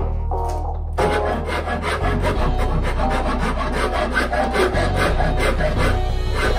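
Quick repeated strokes of a hand file rasping along a new cane cricket bat handle as it is shaped, with background music.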